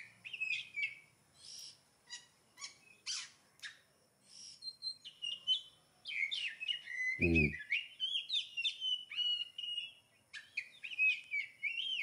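Oriental magpie-robin (kacer) song: varied whistled phrases and short chips, sparse at first, then a longer run of warbling from about six to ten seconds in and more phrases near the end.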